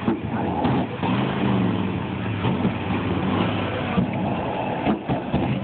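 Engines of a flame-throwing golf cart and a tow truck running and revving, with a few sharp pops from the exhausts as they shoot flames.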